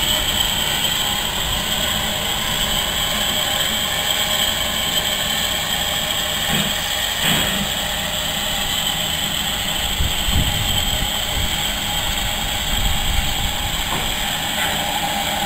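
GER Class Y14 0-6-0 steam locomotive standing with steam up, giving off a steady hiss, with low irregular rumbling underneath.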